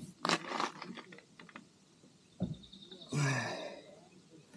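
A man sighing heavily twice with effort, the second sigh voiced into a short grunt about three seconds in, with a few small clicks between them.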